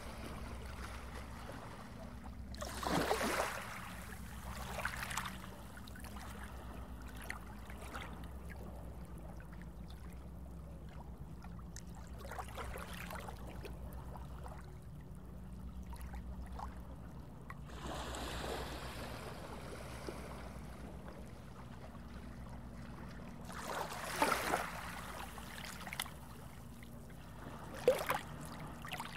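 Underwater water ambience: a steady low rumble with trickling water, broken by several louder water swishes, the sharpest two near the end.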